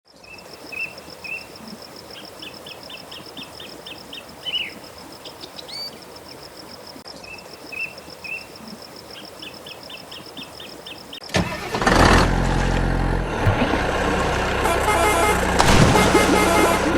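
Birds chirping in short repeated series over a steady high trill, then about eleven seconds in a loud vehicle engine sound starts suddenly and keeps running.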